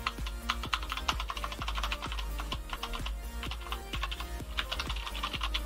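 Typing on an IQUNIX F96 mechanical keyboard with Cherry MX Brown switches, which the owner has lubed with grease to soften the key sound. It is a fast, uneven run of key clacks, over quiet background music.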